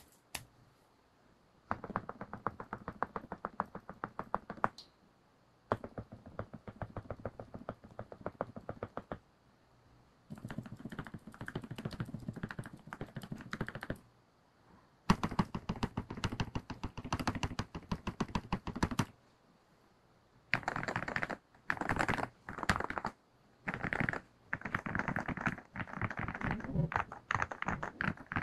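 Fast typing on an AngryMiao Cyberboard mechanical keyboard fitted with lubed NovelKeys Cream linear switches and GMK keycaps. The typing comes in runs of three to four seconds with short pauses between them. The runs in the last third are shorter, about a second each.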